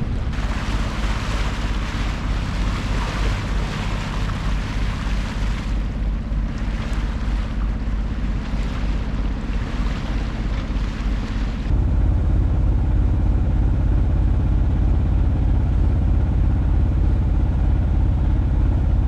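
Boat engine running at a steady low drone under loud rushing water and wind noise. About twelve seconds in, the rushing cuts off abruptly and the engine's low hum becomes louder and dominant.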